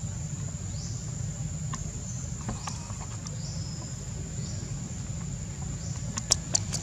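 Steady high-pitched insect drone over a low background rumble, with a few sharp clicks near the end.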